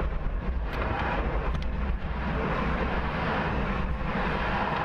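Steady roar of rushing air with a deep rumble, heard inside a Soyuz descent capsule late in its atmospheric descent.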